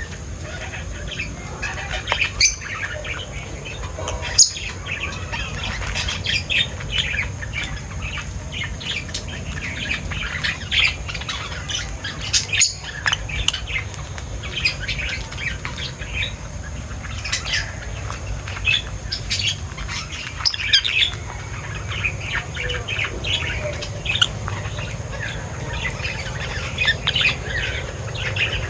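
A flock of small birds chirping and twittering, many quick short calls overlapping throughout, with a few sharp clicks, over a steady low hum.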